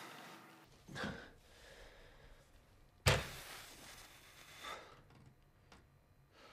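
A few handling sounds in a quiet room: a short swishing sound about a second in, then a sharp bang just after three seconds, the loudest thing heard, and a softer knock near five seconds.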